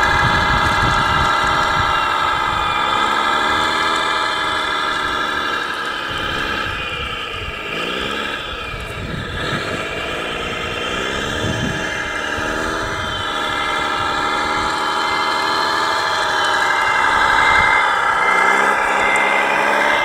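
Remote-control scale model Caterpillar D9 bulldozer running and crawling over gravel. Its drive gives a steady whine of several tones that rises and falls in pitch as it moves.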